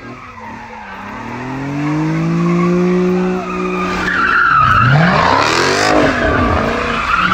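A muscle car's engine revving hard during a burnout, with the tires spinning and squealing on the pavement. The engine climbs steadily at first; from about four seconds in, the revs swing rapidly up and down under the tire squeal as the car spins donuts.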